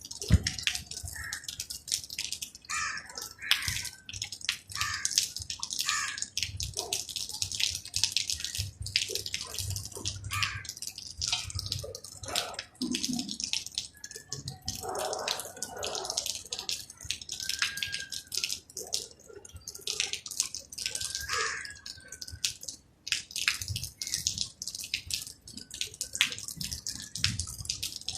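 Rain dripping and pattering: many irregular drops tapping on surfaces close by.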